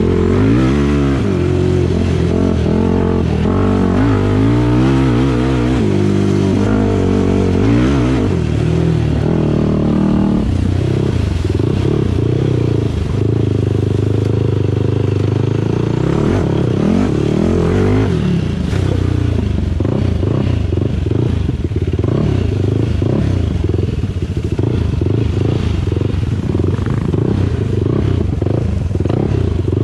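Off-road vehicle engine running under riding, its pitch rising and falling repeatedly through the first ten seconds as the throttle is worked, then holding a steadier pitch.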